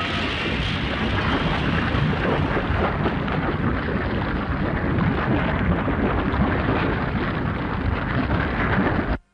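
Monster-film sound effect: a loud, continuous rumbling noise that cuts off abruptly near the end.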